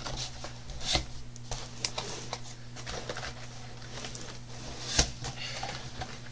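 Cardboard laptop box being opened by hand: flaps rubbing and scraping, with a few sharp knocks, one about a second in and the loudest about five seconds in. A steady low hum runs underneath.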